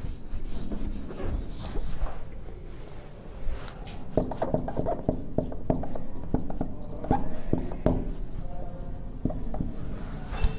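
A felt duster wiping across a whiteboard, then a marker writing on the board in quick strokes with short squeaks and taps from about four seconds in.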